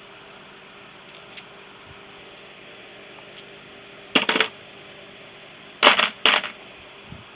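Small metal hand tools clinking against each other as they are sorted in a toolbox: a few light clicks, then two louder bursts of clattering metal in the second half.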